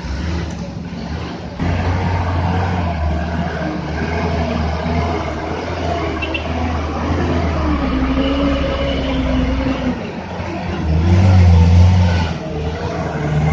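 Diesel engine of a light cargo truck labouring at low speed through deep, sucking mud, its revs rising and falling, getting loudest near the end as it passes close.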